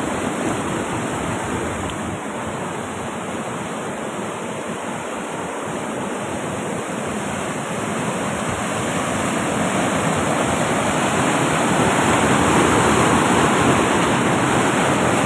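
Water rushing over rocks in a small waterfall on a rocky stream: a steady rush of white water that grows louder in the second half.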